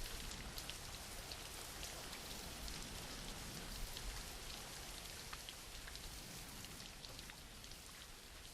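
Steady, gentle rain with scattered drops ticking on a surface, slowly fading.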